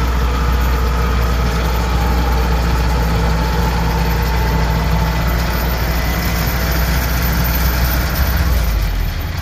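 Kubota DC-105X combine harvester's diesel engine running steadily at close range while the machine turns around on its tracks, with a strong low hum that eases a little near the end.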